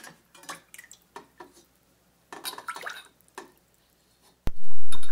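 Chicken broth being scooped into a drinking glass from a steel pot, with light clinks of glass and metal against the pot. About four and a half seconds in comes a sharp clink, then a loud pour of liquid.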